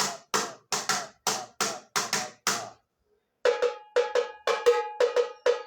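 Tamborim struck with a stick. First comes a run of about nine dry, evenly spaced strokes. After a brief pause comes a quicker, uneven run of ringing strokes in the syncopated teleco-teco pattern, the instrument's basic samba beat.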